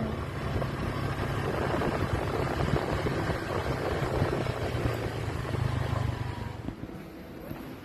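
Engine hum and rushing road noise from a moving vehicle, easing off about seven seconds in.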